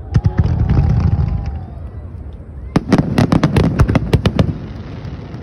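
Fireworks finale: several sharp bangs at the start over a low rumble of aerial shell bursts, then a rapid string of cracking reports from about halfway through.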